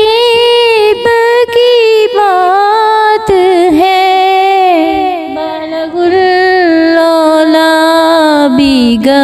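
A solo voice singing a naat, an Urdu devotional song in praise of the Prophet Muhammad, drawing out long notes that bend and waver in pitch. The voice eases off briefly about five seconds in, then carries on.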